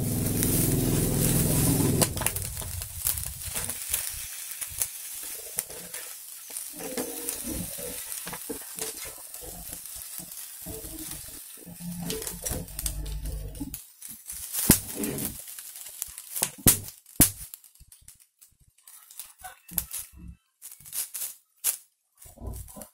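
Wooden chopsticks clicking and scraping against a frying pan as an omelette on a banana-leaf lining is turned, with a loud rumble for the first two seconds and scattered sharp clicks throughout.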